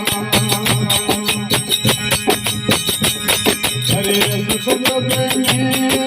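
Devotional aarti music in Rajasthani folk style: a quick, even percussion beat under held melodic lines, the melody moving to new notes about four seconds in.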